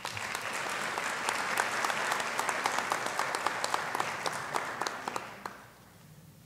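Audience applauding, the clapping dying away about five and a half seconds in.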